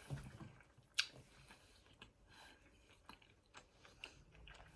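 Quiet close-up eating sounds: faint chewing with a few small mouth and utensil clicks, the sharpest about a second in.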